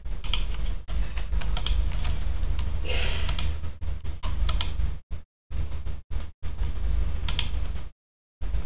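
Scattered clicks of a computer mouse over a steady low hum on the microphone. The sound cuts out to dead silence briefly about five seconds in and again near the end.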